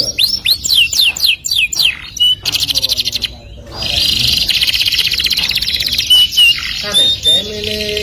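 Domestic canary singing. It gives a quick run of downward-sweeping notes, breaks off briefly about three seconds in, then goes into a long fast rolling trill, with a few short clear whistled notes near the end.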